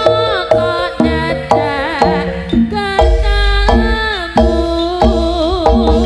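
East Javanese jaranan ensemble music over a sound system: kendang hand-drum strokes about twice a second under a melody line that slides and wavers in pitch. A deep bass comes in about three seconds in.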